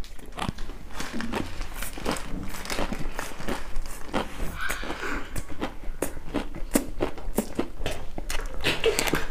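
Close-miked, open-mouth chewing of singju, a crunchy salad of raw shredded vegetables and herbs: a rapid, irregular run of wet crunches and mouth clicks.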